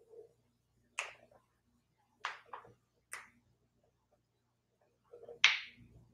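Five short, sharp clicks, two of them close together a little past two seconds in, and the loudest about five and a half seconds in.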